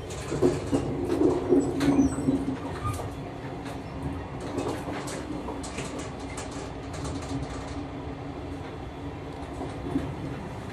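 Passenger coach of a locomotive-hauled sleeper train running, heard from inside: a steady rolling rumble with a hum, louder in the first couple of seconds, and scattered clicks from the wheels and running gear.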